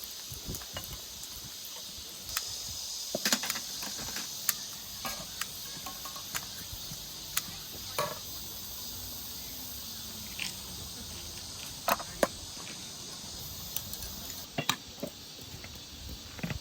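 A steady high chorus of insects, overlaid with scattered sharp clicks and knocks of objects being handled. The chorus cuts off abruptly near the end.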